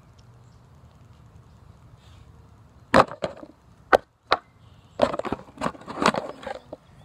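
Sharp knocks and clatter of things being handled on a table close to the microphone: a few separate knocks about three and four seconds in, then a quick run of clattering knocks.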